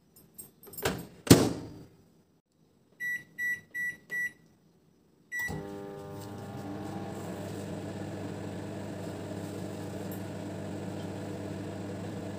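Panasonic microwave oven: the door shuts with a clack, four short beeps come as the keypad is pressed, and with one more beep about five seconds in the oven starts cooking and runs with a steady hum.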